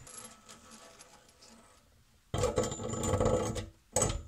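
Faucet's metal supply lines rattling and scraping against the cast iron sink as they are fed down through the faucet hole: a sudden metallic clatter lasting a little over a second, then one short knock near the end.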